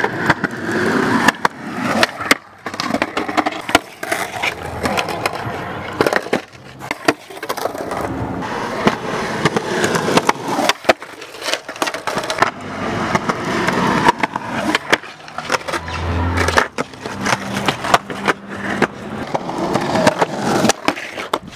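Skateboard wheels rolling on rough concrete, with many sharp clacks of boards and metal trucks hitting the pavement and a concrete ledge as skaters try ledge tricks.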